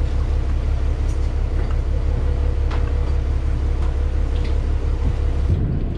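Sportfishing boat's engines running underway, a steady deep drone with a faint hum above it; the drone shifts a little more than five seconds in.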